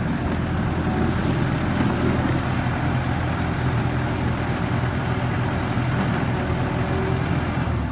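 Terex skid steer's engine running steadily at an even pitch.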